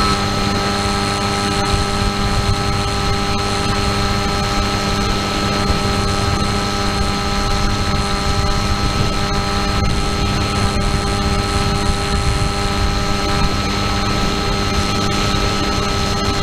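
FPV model aircraft's motor and propeller running at a steady throttle, a constant multi-tone whine over wind rushing past the onboard camera's microphone.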